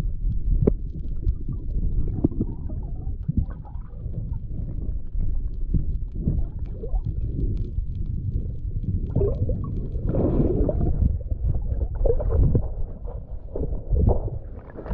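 Muffled underwater rumble and gurgling of water moving around a camera held below the surface, with many short, irregular knocks.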